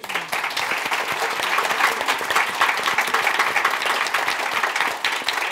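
Audience applauding, breaking out suddenly.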